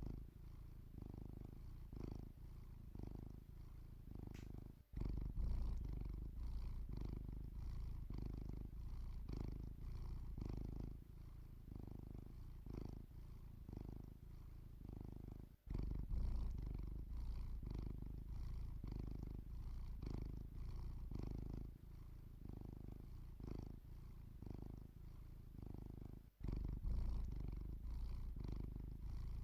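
Domestic cat purring steadily, the low purr swelling and fading with each breath, a little under a second per breath. There are brief dropouts about 5, 16 and 26 seconds in.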